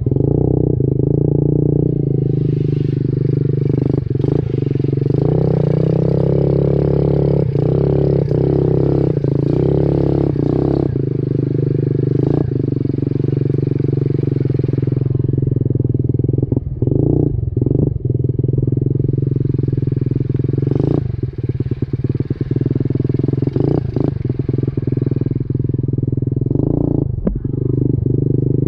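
SSR 70 pit bike's small single-cylinder engine running at a steady, even speed while the bike is ridden over a rough dirt trail. Short knocks and rattles come from the bike over bumps, more often in the second half.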